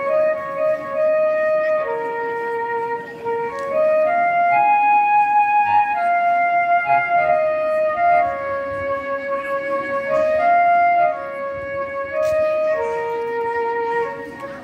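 Flute-toned instrumental music: a slow melody of long held notes moving up and down in small steps.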